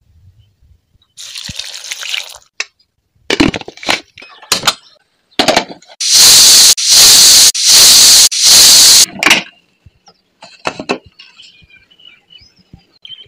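Stovetop pressure cooker's weighted whistle letting off steam in four loud hissing blasts, each under a second: the first whistle, the sign that the cooker has come up to pressure. Before it, water is poured into the pot and there are a few sharp knocks.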